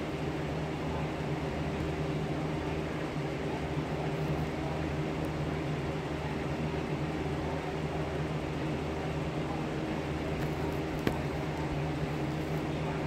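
Electric fan running steadily: a constant whir with a low, even hum.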